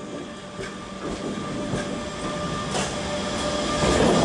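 DB Regio class 425 electric multiple unit running in alongside the platform, a steady whine over the rumble of its wheels, with a few clicks, growing louder as it comes alongside.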